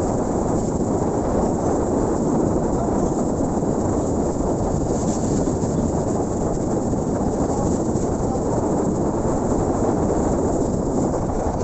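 Steady wind rush on the microphone with road noise from a moving vehicle, an even roar with no distinct engine note.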